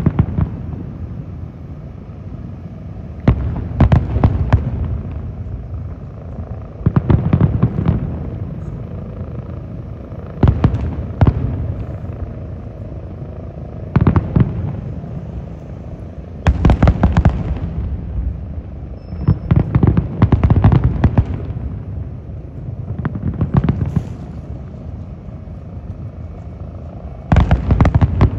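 Aerial firework shells bursting in volleys: a cluster of sharp bangs every three or four seconds, with a low rumble between the volleys.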